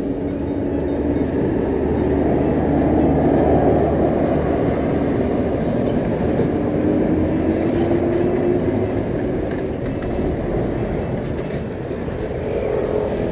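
Busy road traffic: a steady rumble of passing vehicles that swells about three to four seconds in, with one engine's pitch rising slowly near the middle.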